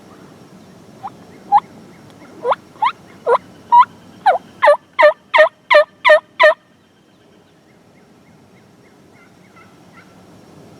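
A series of about a dozen turkey yelps, starting sparse and coming faster and louder, then stopping about six and a half seconds in.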